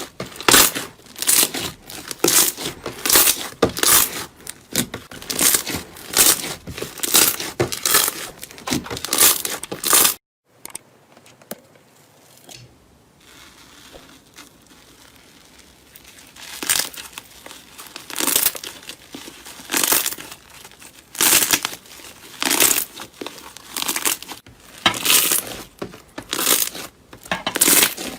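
Slime being squeezed and pulled by hand, making repeated short crackling squishes. They stop suddenly about ten seconds in, leaving a few quieter seconds, then start again more slowly.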